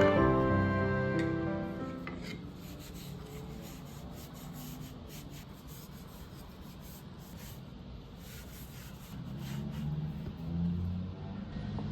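Wooden kitchen utensils being scrubbed with baking soda: repeated short rasping, rubbing strokes. Soft background music fades out in the first couple of seconds.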